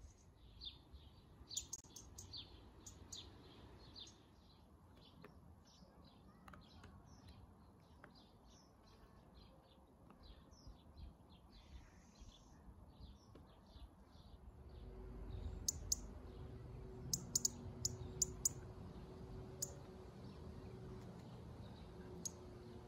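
Small garden birds chirping, a quiet run of short, high notes repeated over and over. Later the chirping gives way to a low rumble with a few sharp clicks.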